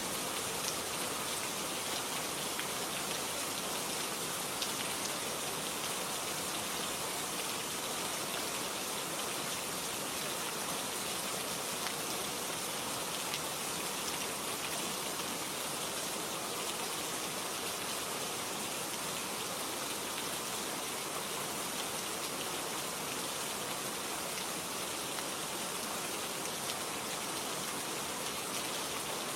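Steady rain falling, a constant even hiss with faint scattered drop ticks.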